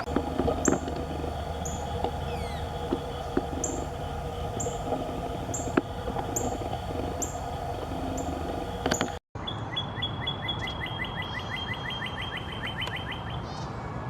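Songbirds calling: a high, sharp chip repeated about once a second, then, after a brief cut in the sound, a rapid, even trill of a couple of dozen notes lasting a few seconds.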